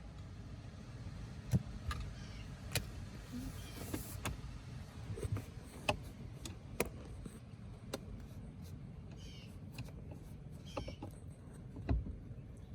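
Irregular light clicks and knocks of a screwdriver, screws and plastic parts being handled while fitting a blower motor's mounting screws under a car's dashboard, against a faint low background hum.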